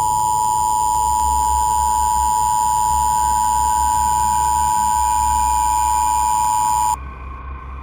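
Emergency Alert System attention signal: a loud, steady two-tone alarm that cuts off suddenly about seven seconds in. A low hum is left behind. The signal announces an emergency broadcast, here a National Weather Service tornado bulletin.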